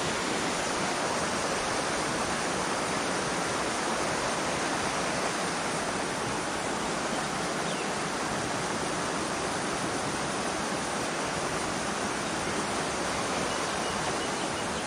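Mountain stream water rushing steadily over rocks and shallow riffles, an even, unbroken rush.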